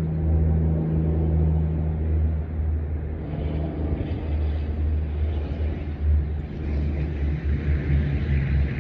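A steady low engine drone with rumble, holding an even pitch, with a rising hiss joining it in the second half.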